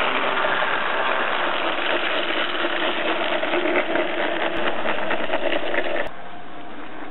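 A 16mm-scale diesel-outline model locomotive and its wagons passing close: a steady motor-and-gear whirr with the wheels clicking quickly over the track in the second half. About six seconds in, it drops suddenly to a quieter, even hiss.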